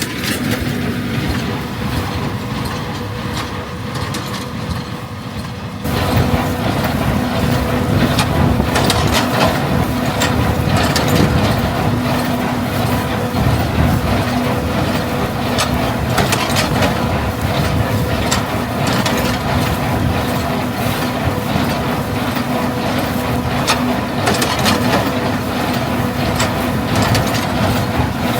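Tractor engine running steadily under the clatter and crunching of a small square baler's mechanism working through straw. The sound gets louder and busier about six seconds in.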